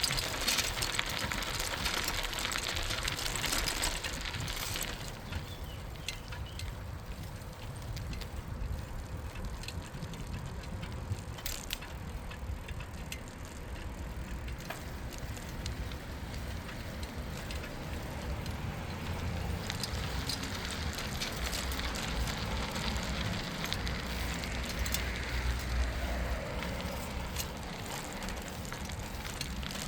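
Bicycle being ridden, heard from the rider: a steady rolling hiss of tyres on the path over a low rumble, brighter for the first few seconds.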